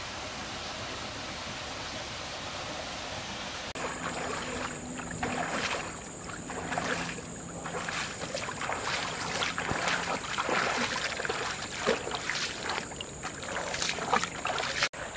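Stream water running steadily, then, from about four seconds in, bare feet splashing as they wade through shallow stream water, in irregular steps that grow louder. A steady high insect drone runs under the splashing.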